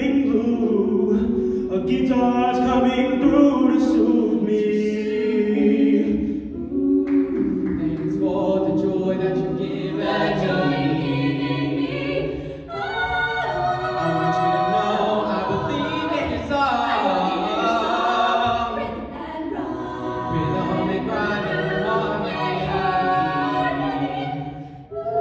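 Small mixed vocal ensemble of young men and women singing a cappella in close harmony into microphones, with sustained chords and no instruments.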